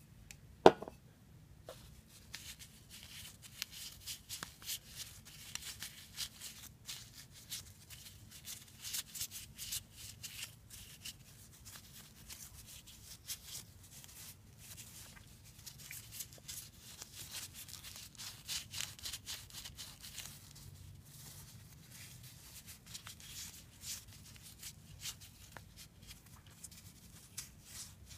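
Paper tissue rubbing and wiping inside a fishing reel's housing, a run of small irregular scratchy crackles. A single sharp knock about a second in is the loudest sound.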